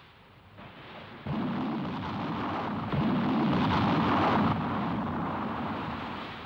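Heavy naval gunfire and shell explosions. A sudden blast comes about a second in and another about three seconds in, each rolling on as a deep rumble and slowly dying away.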